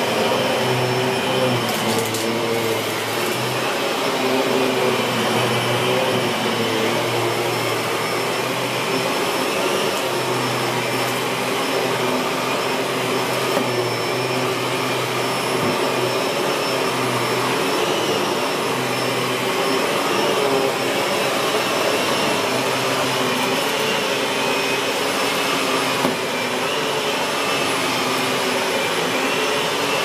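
Miele S7510 bagged upright vacuum cleaner running steadily while it is pushed back and forth over carpet.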